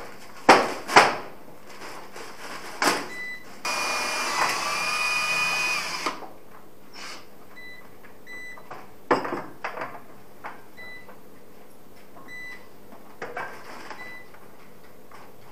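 A power drill runs in one steady whirring spell of about two seconds, with a pitched whine. Sharp knocks and clatter from handling parts come before and after it.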